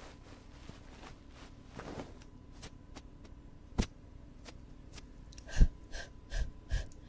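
Close-up ear-cleaning ASMR sounds on a 3D microphone: soft scratchy ticks, a single sharp click, then four quick squeaky pops near the end.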